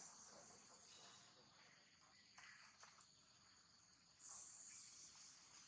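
Faint, steady insect chorus: a high continuous buzz that grows louder about four seconds in.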